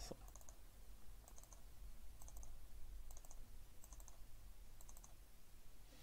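Computer mouse double-clicked about six times, roughly once a second: faint, sharp paired clicks.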